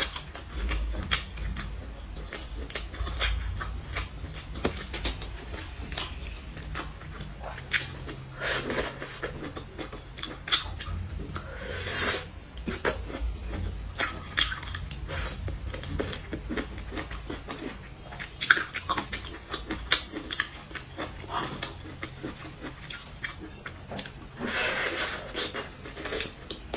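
Close-miked chewing and wet mouth sounds of a person eating saucy grilled skewers: many soft smacks and clicks, with a few louder, longer bursts, the longest near the end.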